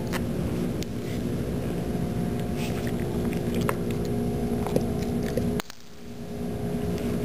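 Steady low background hum with a few faint clicks, dropping away briefly about three-quarters of the way through.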